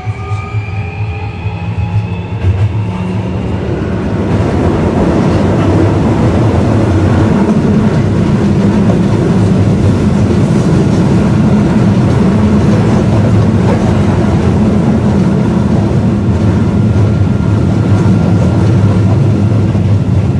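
Osaka Metro 1300 series subway train, heard from inside the car. The Toyo IGBT VVVF inverter's rising whine fades out in the first few seconds as acceleration ends, followed by the steady, loud running noise of the wheels on the rails.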